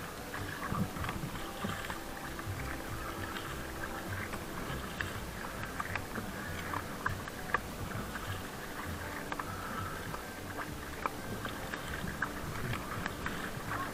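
Paddle strokes splashing and water lapping against the hull of a small paddled boat on choppy water. The sound is a steady wash with frequent small irregular splashes.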